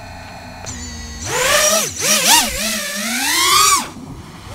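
FPV freestyle quadcopter's brushless motors and propellers, first spinning steadily at idle after arming. They then whine loudly, rising and falling in pitch as the throttle is punched for takeoff and flight, and drop back just before the end.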